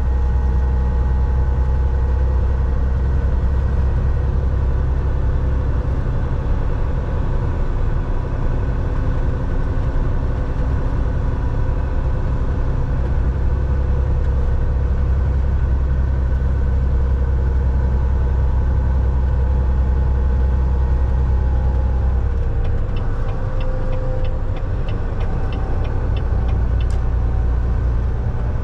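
Semi truck's diesel engine and road noise heard from inside the cab at steady cruising, a deep drone that eases off and comes back a couple of times. Near the end there is a short run of faint, even ticks.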